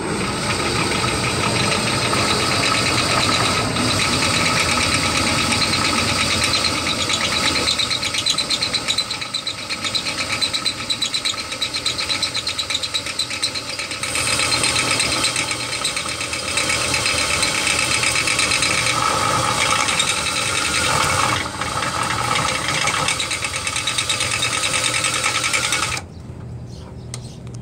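Ryobi 18-volt cordless drill running at part trigger, spinning a rusted carriage bolt against a hacksaw blade held on its threads: a steady motor whine mixed with the grating of the blade cutting the bolt. It cuts off abruptly near the end.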